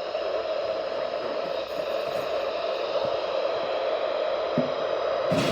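Weather radio receiver putting out steady static hiss with a droning hum-like band, with no voice in the broadcast. A soft knock comes near the end.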